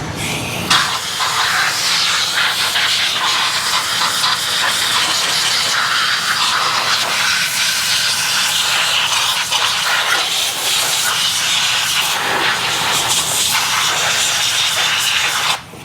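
Compressed-air blowgun hissing steadily and loudly as it blows sawdust and dirt out of a chainsaw. The air cuts off near the end.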